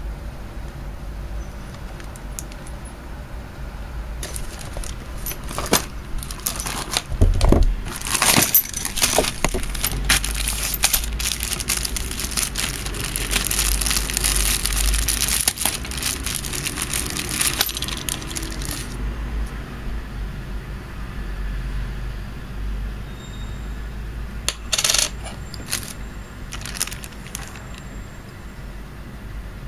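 Clear plastic bag of toy parts being handled, crinkling and rustling for about ten seconds in the middle, with scattered clicks and light clinks of hard plastic parts being picked up before and after.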